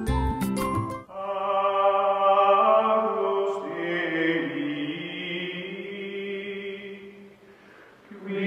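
Outro music: a bright jingle with sharp percussive hits stops about a second in, and a choir-like chanted chord of long held notes follows, fading away near the end before a new chord begins.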